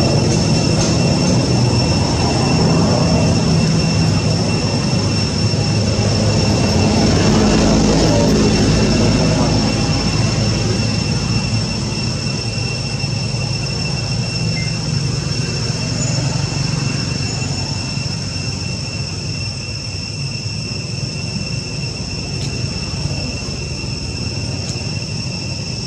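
A steady low rumble like a passing engine, swelling about a third of the way through and then slowly easing off, under a constant high-pitched whine.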